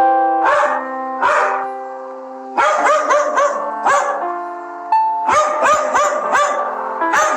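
A dog barking in short repeated barks, in several quick runs, over background keyboard music with held notes.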